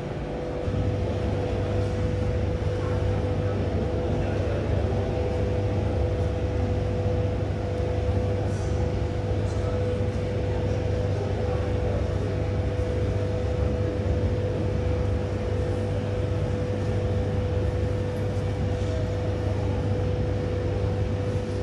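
Steady low mechanical drone with a constant higher hum over it, stepping up in level about a second in and then holding flat.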